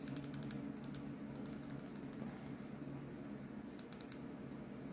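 Rapid clicking of TV remote-control buttons pressed in quick runs: a few presses at the start, a fast run of about ten in the middle, and four near the end, over a steady low hum.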